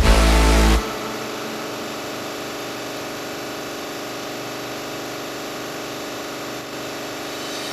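Electronic music cuts off about a second in, leaving the steady hum of a running Sabroe refrigeration compressor.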